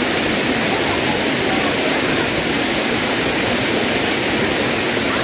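Steady rush of a narrow waterfall pouring down a rock face into a pool.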